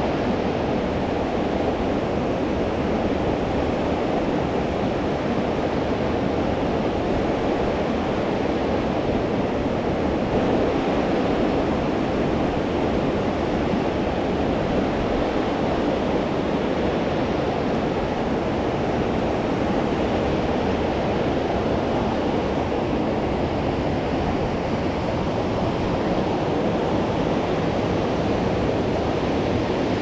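Steady rush of a fast, turbulent river running through rapids, an even roar of whitewater with no change.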